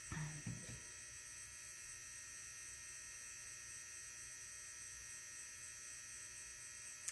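Steady electrical hum with a faint high-pitched whine. A brief louder sound comes right at the start and lasts under a second.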